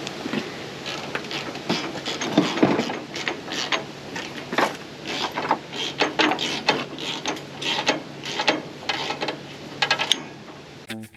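Irregular metallic clicking and clanking of hand tools and parts, in quick runs of several clicks a second, as the pickup screen and chain are worked on. Background music comes in just before the end.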